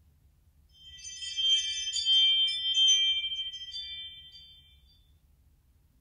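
A doorbell ringtone playing: high, tinkling, bell-like tones that start about a second in, swell, then fade away by about five seconds.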